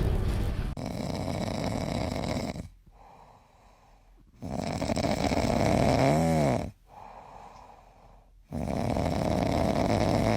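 Dog snoring: three long, loud, noisy snores about four seconds apart. The middle one ends in a brief squeaky tone that rises and falls. In the first second a low rumble cuts off just before the first snore.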